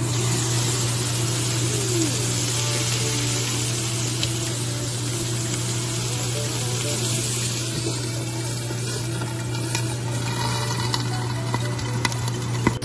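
Steak sizzling as it sears in a grill pan: a steady frying hiss, with a low steady hum underneath. A couple of sharp clicks come near the end.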